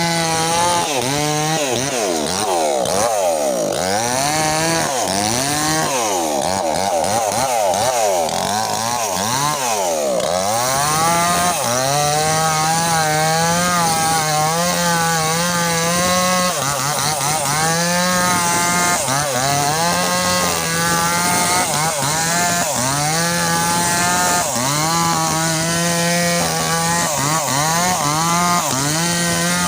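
Small petrol chainsaw engine running hard while cutting through an oil palm trunk. Its pitch dips and recovers over and over as the chain bites into the wood, and it runs higher and more unevenly for the first ten seconds or so.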